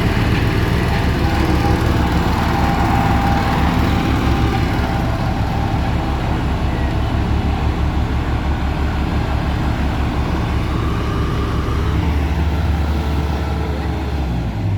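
Diesel engine of heavy construction machinery running steadily, a low, evenly pulsing engine note.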